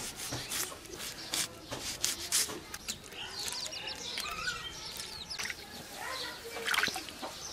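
Short clicks and taps of hands preparing food, with birds chirping in the background about halfway through.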